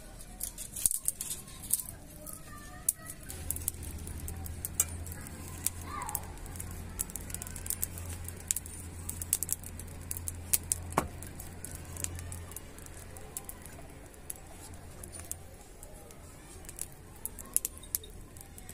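Open wood fire crackling under an iron griddle, with many sharp snaps scattered throughout. A low steady hum runs from about three seconds in to about twelve seconds, and there is a single louder knock about eleven seconds in.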